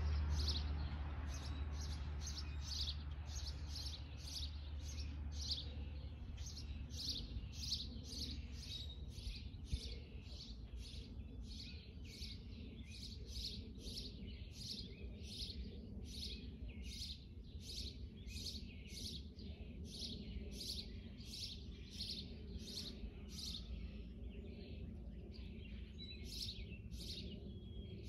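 A songbird calling over and over in short high chirps, about two a second, with a low rumble fading away over the first few seconds.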